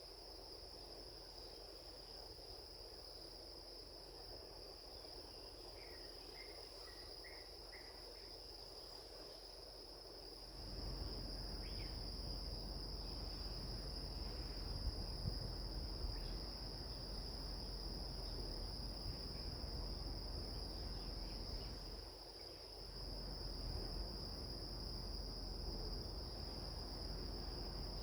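Steady high-pitched insect chorus, with a few short chirps about six to eight seconds in. About ten seconds in, a low rumbling noise comes up under it and carries on, dropping away briefly near the end.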